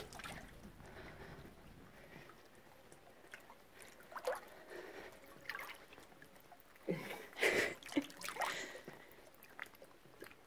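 Water sloshing and splashing around a swimmer in a cave pool, with a cluster of louder splashes about seven to eight and a half seconds in.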